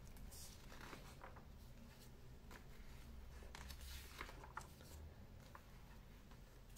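Faint rustling of magazine paper as pages are handled and turned, a few soft swishes with the loudest about four seconds in.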